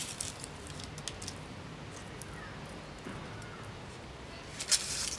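Dry fallen leaves crackling and rustling as a toddler's hands grab at them on paving stones: a few short crackles near the start and a louder burst of crunching near the end.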